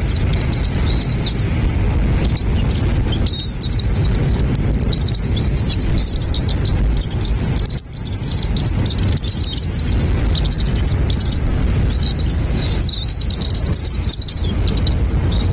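Small birds chirping and trilling in high-pitched clusters, heard over a loud, steady low rumbling noise.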